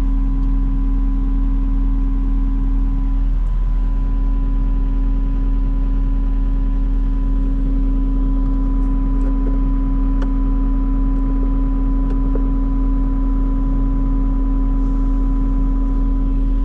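2018 JCB 215 skid steer's diesel engine running at a steady speed, a constant drone with a steady whine above it that dips briefly about three and a half seconds in.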